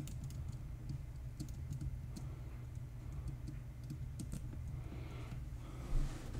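Computer keyboard keys pressed in scattered single clicks and short runs as keyboard shortcuts are entered, over a steady low hum, with a brief louder sound near the end.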